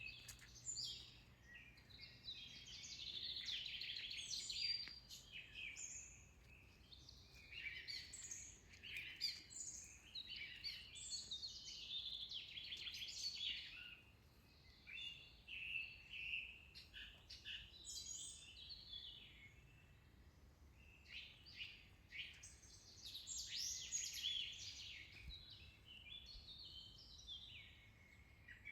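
Songbirds singing, several overlapping songs of chirps and trills, in bursts of a few seconds with short quieter gaps.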